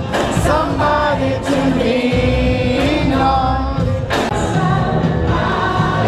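Loud 80s pop music with singing, played for a dancing crowd.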